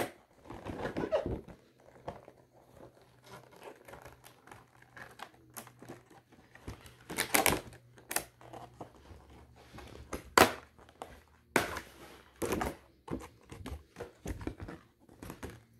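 Rigid plastic retail packaging being handled: a clear plastic clamshell and a white plastic tray insert are pried apart and lifted, with crinkling, rustling and irregular sharp clicks and snaps. The loudest snaps come about a second in and again around seven to thirteen seconds in.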